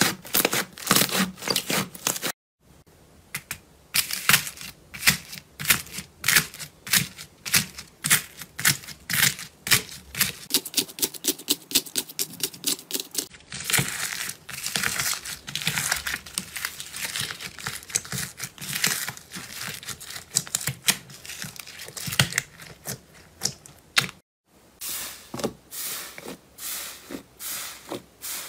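Slime being pressed, poked and squeezed by hand, giving rapid crackling and popping clicks. In the long middle stretch a green slime thick with blue foam beads is worked by hand and crunches. The sound drops out briefly twice, about two seconds in and near the end.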